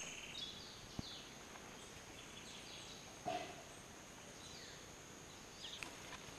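Faint outdoor natural ambience: scattered short bird chirps over a steady high-pitched whine. A single sharp click comes about a second in, and a brief louder call a little past three seconds.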